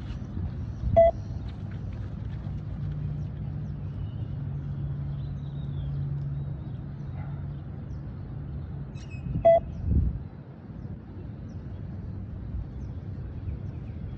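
Beep test (20 m multistage shuttle run) audio sounding two short single beeps about eight and a half seconds apart, the level-1 shuttle interval, each beep marking the end of a shuttle. A steady low rumble runs underneath, with a low thump just after the second beep.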